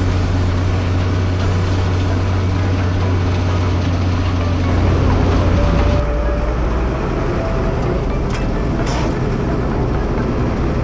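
SAME Tiger Six six-cylinder diesel tractor engine running steadily under load, heard from inside the cab while mulching maize stalks. About six seconds in the sound changes abruptly to a deeper engine note with much less hiss.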